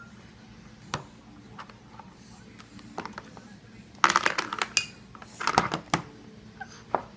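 Plastic baby spoon clattering and scraping in a small ceramic bowl on a plastic high-chair tray: a few single knocks, then two loud bouts of rattling about four and five and a half seconds in.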